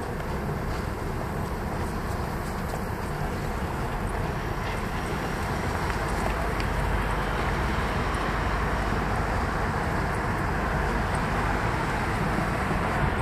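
Steady city street traffic noise from passing cars, growing a little louder in the second half.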